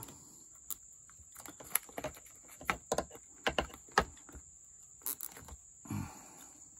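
Scattered sharp plastic clicks and taps of hands handling wiring-harness connectors and a zip tie, about ten of them spread irregularly over a few seconds, with a soft knock near the end. Under them a steady high insect drone, like crickets, runs on.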